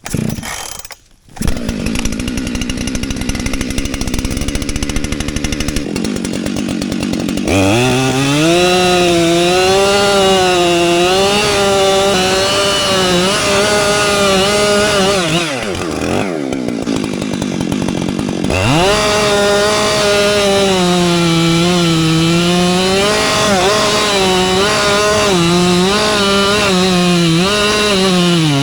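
Two-stroke chainsaw running, first at a steady lower speed, then from about seven seconds in at full throttle cutting through a large log, its pitch wavering as the chain bogs and recovers under load. Around the middle the engine drops off briefly and then revs back up into the cut.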